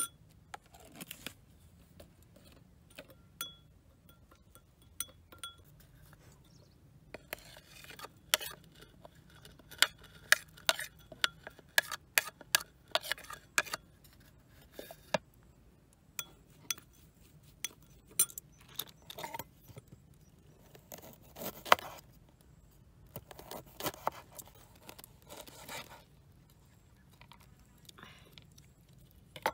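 Metal spoon clinking and scraping against a ceramic bowl while stirring salt, pepper, chopped chilies and garlic into a dry seasoning mix. The clinks are sharp and come in irregular clusters with pauses between, sparse at first and densest in the middle.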